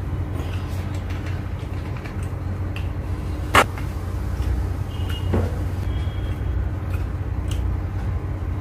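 A plastic soda bottle being opened and poured into a glass: a sharp click about three and a half seconds in and a softer knock a couple of seconds later, over a steady low hum.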